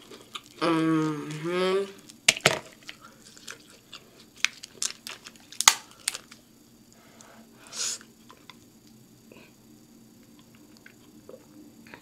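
A woman's drawn-out pleased hum ('mmm') with a mouth full of food, followed by scattered sharp cracks and clicks as crab-leg shells are snapped apart by hand, with soft chewing between.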